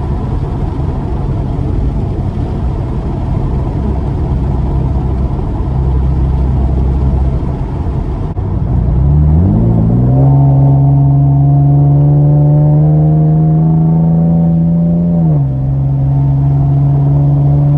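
Camaro's engine and road rumble heard from inside the cabin while driving. About nine seconds in the engine note climbs as the car accelerates, then holds at a steady pitch, dipping briefly near the end before settling a little lower.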